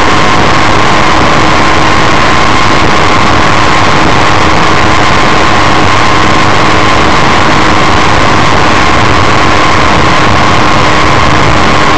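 Microlight trike's engine and propeller running steadily in flight, with a constant rush of air over the microphone. The sound is loud and unchanging, a dense noise with a few steady tones.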